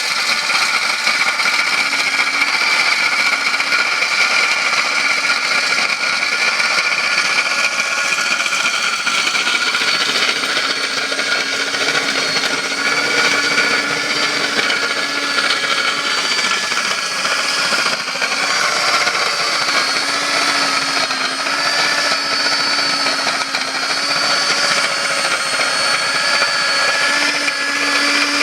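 DD-100 diamond core drill running steadily while drilling, together with a vacuum cleaner: a continuous motor whine whose pitch wavers slightly.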